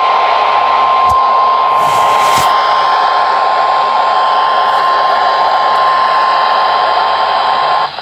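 First Alert weather radio sounding the 1050 Hz warning alarm tone over radio static: one steady high tone that cuts off near the end, signalling a severe thunderstorm warning. A brief rustle about two seconds in.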